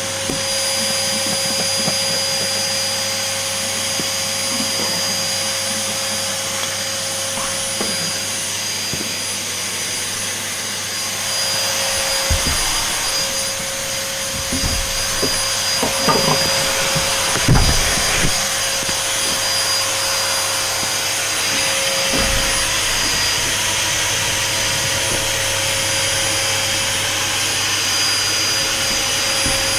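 Vacuum cleaner running steadily with a constant whine, sucking up spilled flour. A few low knocks come through around the middle.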